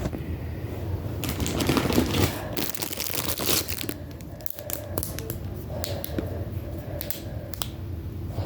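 Packaging crinkling and tearing as it is handled, with scattered sharp clicks.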